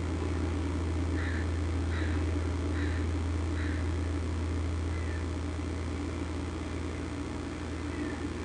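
A bird giving a run of short, high calls, four about a second apart and then two fainter ones, over a steady low hum.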